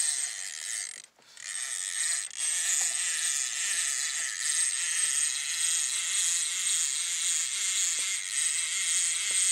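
Fishing reel whirring steadily, with a short break about a second in, as a hooked fish is fought on a hard-bent rod.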